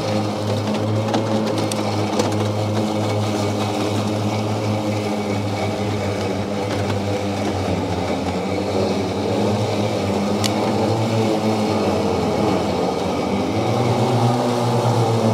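EGO 52-inch battery-powered riding mower's electric motors running with a steady hum as it cuts tall grass. The hum wavers in pitch from about nine seconds in.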